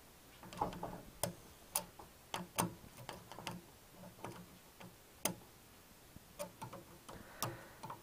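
Sparse, irregular sharp clicks and light taps, about one or two a second, as small hard parts or tools are handled.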